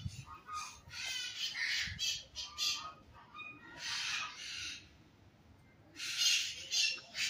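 A flock of parrots squawking and screeching in harsh repeated calls, excited because they are being fed. The calling drops off briefly a little past the middle, then starts up loudly again.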